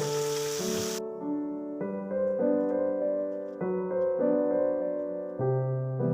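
Soft piano background music playing slow, held chords. A steady hiss under it cuts off abruptly about a second in.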